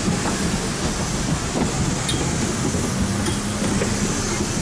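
Steady cabin noise inside an Airbus airliner moving on the ground: the even rush and low hum of the jet engines and cabin air, with a few light knocks now and then.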